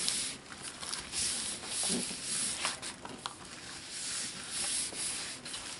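Palms rubbing and pressing across a closed paper journal page in repeated strokes, a soft papery swishing with a few light ticks. This is the spreading of acrylic paint drops pressed between the pages.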